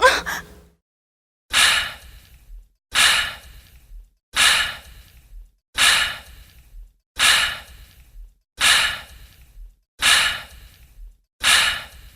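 A woman's short pitched gasp, then a breathy seductive sigh repeated eight times, about one every second and a half, each a loud exhale that trails off.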